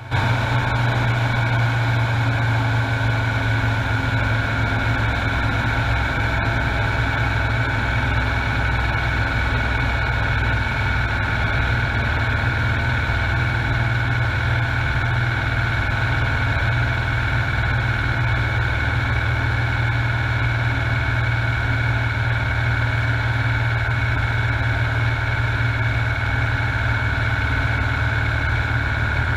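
Piper J-3 Cub's engine and propeller running steadily in flight, heard from inside the cockpit.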